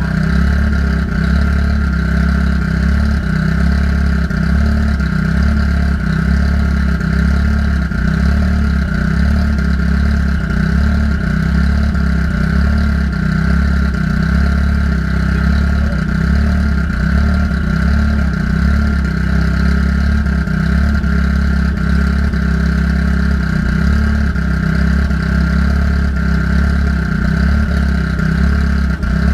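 Car engine idling steadily, left running so the cooling system can be burped of trapped air after a new radiator was fitted.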